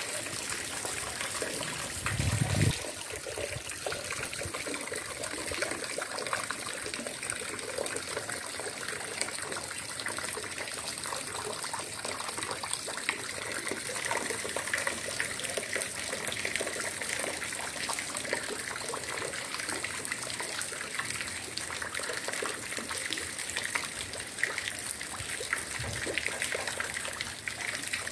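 Heavy rain falling steadily, a constant watery hiss with trickling water. A brief low thump about two seconds in.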